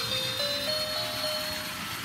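Small electronic music box playing a simple beeping tune through its tiny speaker, one plain note at a time, stepping up a few notes and then holding.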